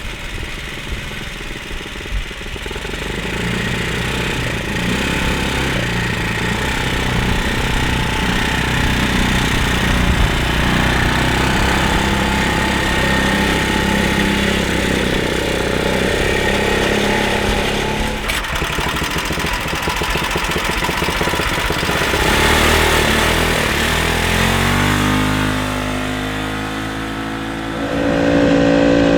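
Predator 420cc stage 2 single-cylinder four-stroke ATV engine running under load through a 2014 Mustang 5.0 muffler, its revs holding fairly steady, then climbing steeply near the end.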